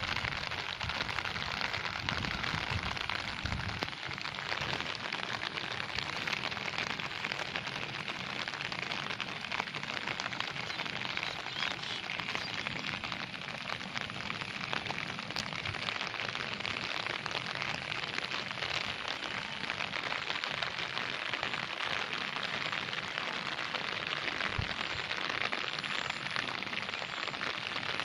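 Steady rain falling on wet ground, an even hiss with a fine patter of drops.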